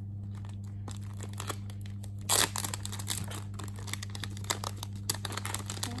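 Clear plastic photo card sleeve crinkling and crackling as a photo card is worked out of it, with a louder tearing crackle about two seconds in.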